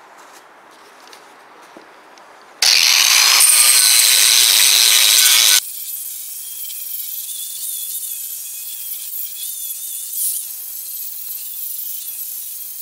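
Electric angle grinder with a flap disc grinding rust off cast-iron brake rotors. It comes in loud about two and a half seconds in, then drops suddenly a few seconds later to a steadier, quieter high-pitched whine and rasp as the disc works the metal.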